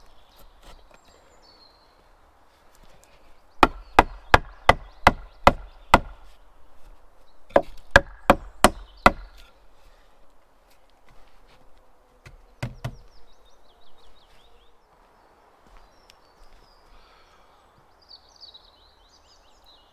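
Sharp blows of a tool striking wood in two quick runs, about seven blows then about five, roughly three a second, with one or two softer knocks a few seconds later. Faint birds chirp near the end.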